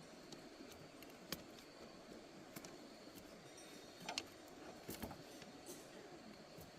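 Scattered light clicks and clinks of small metal objects being handled, a few seconds apart, over a faint steady background hiss.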